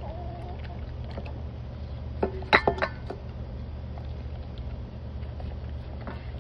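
A Doberman eating raw food from a stainless-steel bowl: soft chewing and licking, with a quick run of ringing metallic clinks as its muzzle knocks the bowl about two seconds in. A steady low hum lies underneath.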